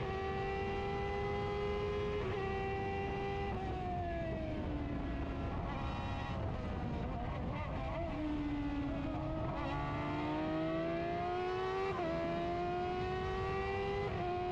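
Onboard sound of an F1000 open-wheel race car's 1000 cc motorcycle-derived engine running at part throttle under the safety car. The revs ease down about four seconds in, then climb steadily from about eight seconds, with a quick upshift near the start and another around twelve seconds.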